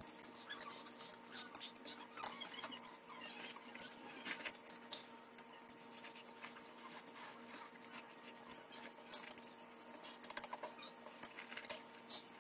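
Chopsticks clicking and scraping against a ceramic plate while mixing noodles: scattered soft clicks and scratches over a faint steady hum.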